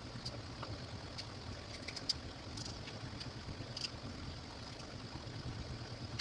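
A knife slicing raw potatoes thin on a cutting board, making light irregular clicks about every half second to second, over a steady low hum.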